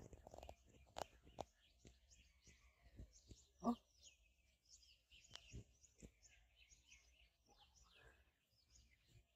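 Faint chirping of birds, many short high calls scattered throughout, with a few soft clicks and one brief louder sound a little under four seconds in.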